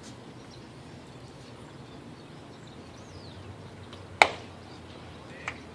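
One loud, sharp crack of a baseball bat hitting a pitched ball, about four seconds in, with a short ringing tail, over faint open-air ballpark background.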